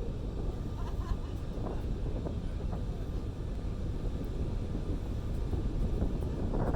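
Steady low rumble of a car ferry underway, with wind on the microphone.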